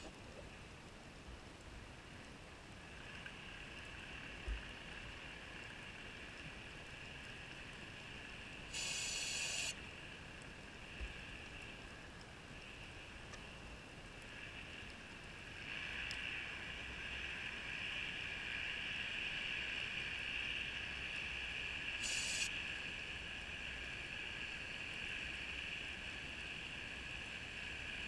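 A steady mechanical whine heard underwater, growing somewhat louder a little past halfway. Two short hissing bursts come about a third of the way in and again near three-quarters.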